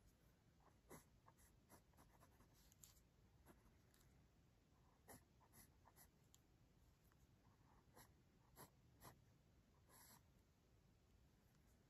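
Faint scratching of a graphite pencil on paper: short, irregular sketching and hatching strokes, several a few seconds apart.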